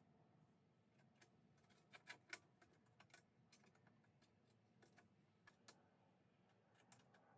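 Near silence, with a scatter of faint light clicks and taps as steel parts are handled and set against magnets on a perforated steel welding table; the loudest couple come about two seconds in.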